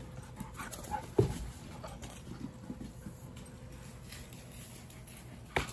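Quiet handling noises with a sharp knock about a second in and another near the end, and a puppy faintly heard.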